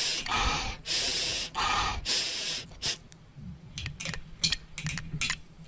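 A pug sniffing hard at the base of a wooden utility pole: three long, noisy sniffs in the first three seconds, then quieter, with small clicks.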